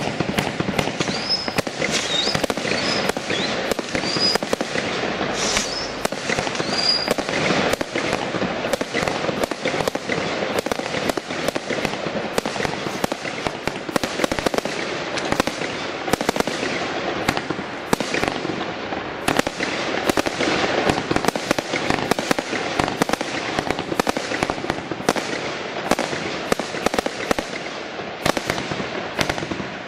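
Brothers 'Fireworks Crazy' 100-shot high-noise barrage (combination Roman candle) firing continuously: rapid, closely spaced launch bangs and bursting shots, one after another. A few short, high whistles come through in the first several seconds.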